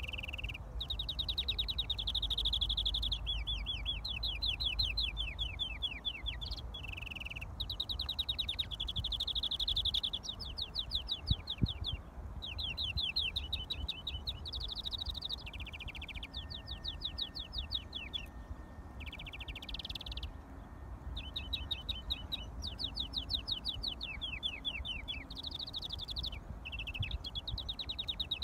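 A caged European greenfinch singing long runs of fast trills, the phrases shifting in pitch and broken by short pauses, over a low wind rumble.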